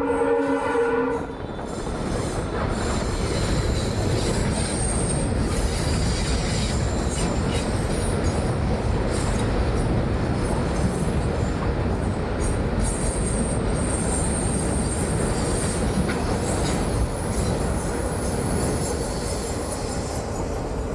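A blast of about a second from the WAP-4 electric locomotive's diesel-type horn, a WDP-4 horn fitted to it, several tones sounding together. Then the train runs on at speed with a steady rumble of wheels on rail, and thin high wheel squeals come and go.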